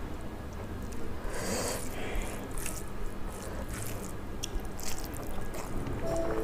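Wet squishing of rice and curry being mixed and squeezed by hand, then close-up chewing with wet mouth clicks. Background music comes in near the end.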